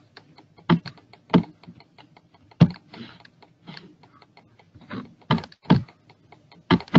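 Computer keyboard typing and mouse clicks: irregular sharp taps, a handful of them louder than the rest.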